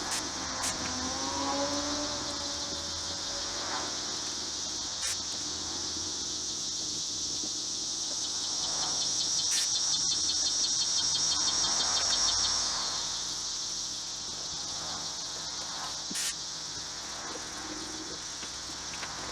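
Insects, crickets or similar, buzzing steadily in a high band, swelling into a rapid pulsing trill for about four seconds midway. A few sharp clicks stand out over it.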